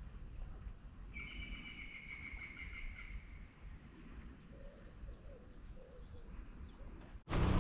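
Quiet riverside ambience with birds calling. One buzzy call lasts about two seconds, starting a second in, among scattered short high chirps over a low rumble. Near the end a much louder rush of noise cuts in abruptly.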